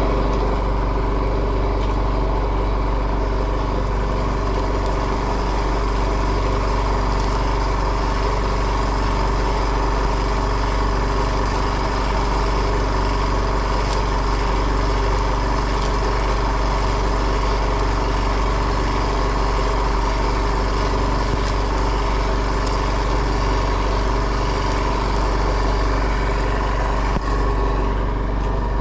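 A fishing boat's engine running steadily, a constant unchanging drone.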